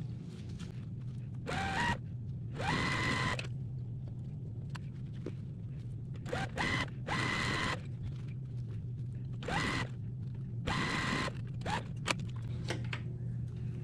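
Electric sewing machine stitching in about six short runs of a half to one second each, stopping between them as small fabric pieces are fed through one after another. A steady low hum runs underneath, and there are a few light clicks near the end.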